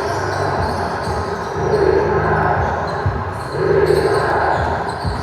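Basketball game sounds in a large gym: a basketball bouncing on the court amid steady hall noise.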